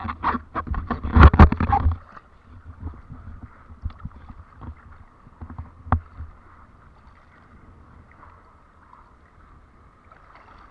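Water splashing and slapping, a loud cluster of knocks and splashes in the first two seconds, then a quieter steady wash with a few scattered knocks.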